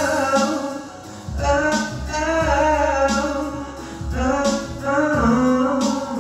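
A man singing a slow ballad into a handheld microphone over a soft instrumental accompaniment, in sung phrases broken by short pauses about a second in and about four seconds in.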